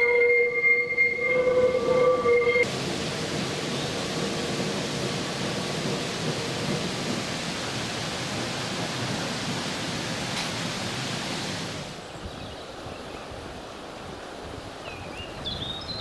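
Tram wheels squealing on a tight curve, a high multi-tone screech that cuts off abruptly about two and a half seconds in. A steady rushing noise follows, dropping to a quieter steady hiss about twelve seconds in.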